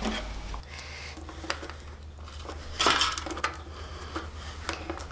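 Scattered light clicks and plastic rustles of a wiring loom and nylon cable ties being pushed and tucked into a motorcycle's rear frame, a little louder about three seconds in.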